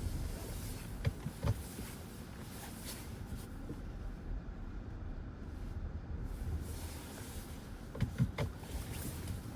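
Road noise inside a moving car at highway speed: a steady low rumble, with a few short knocks about a second in and again near the end.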